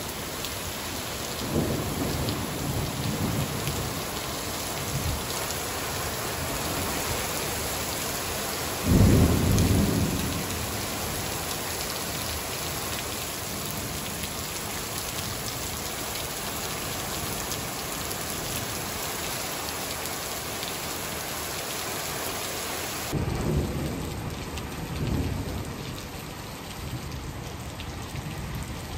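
Torrential downpour hissing steadily, with rolls of thunder: a loud rumble about nine seconds in and lighter rumbles near the start and near the end.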